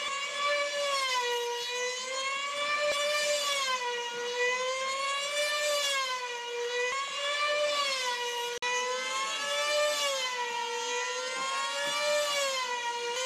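Control-line combat model planes' small two-stroke glow engines running flat out in a high-pitched whine. The pitch rises and falls about once every two seconds as the planes circle the pilot.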